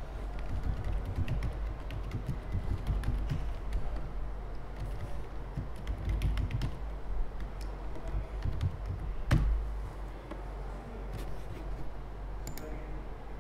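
Laptop keyboard being typed on: irregular light key taps while a login and password are entered, with one louder click about nine seconds in.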